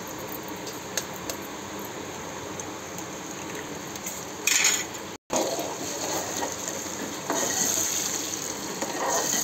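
Onion-tomato masala with raw eggs frying in a steel pan, a steady sizzle with a few light clicks. About halfway through, the sound cuts out for a moment. In the last couple of seconds a steel spoon stirs and scrapes around the pan, louder and brighter.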